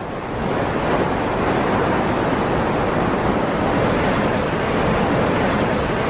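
Storm-driven sea waves surging and crashing onto the shore, a dense, steady rush of churning water that swells over the first second.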